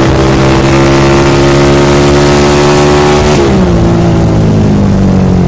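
Suzuki Satria FU 150's single-cylinder four-stroke engine, running loud through an Elmer racing exhaust with new glasswool packing, pulls under throttle with its pitch climbing slowly. About three and a half seconds in the pitch falls sharply, then holds lower. Wind rushes over the helmet-mounted microphone.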